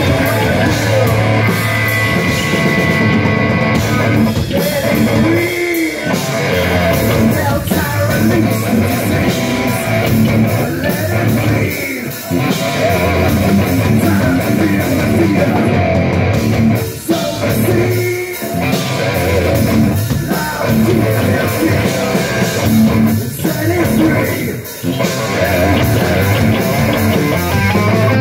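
Live rock band playing loud: electric guitar, bass guitar and drum kit together.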